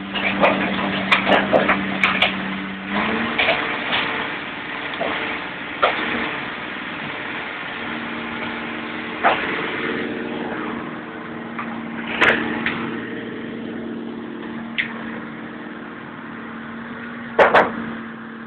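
An engine running steadily with a low hum, while scrap car bodies are wrecked: sharp metallic bangs and cracks at irregular intervals, a quick run of them in the first two seconds and the loudest pair near the end.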